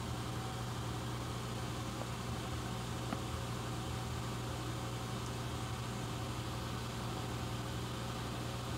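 Steady low electrical hum with a faint even hiss: room tone. Two faint ticks come about two and three seconds in.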